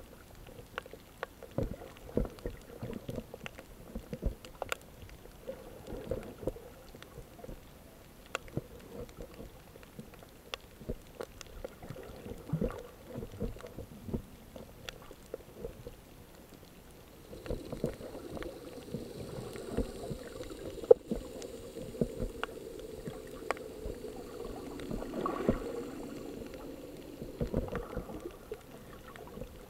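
Muffled water sounds with many irregular clicks and pops. A steadier hum joins about 17 seconds in and fades out near 27 seconds.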